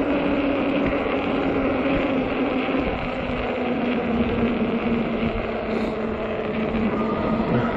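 Hub motor of a 48 V fat-tire e-bike humming steadily under power, its pitch sagging slightly. Wind noise on the microphone and tyre rumble run underneath.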